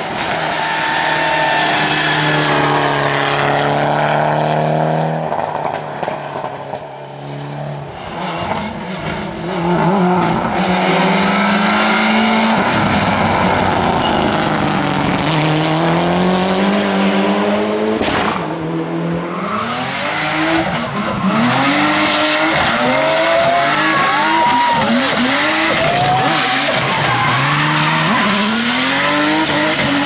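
Mitsubishi Lancer Evolution X rally car's turbocharged four-cylinder engine under hard load through tight bends, the revs climbing and falling with each gear change and corner. A single sharp pop comes past the middle, and the last third brings quick, short surges of revs.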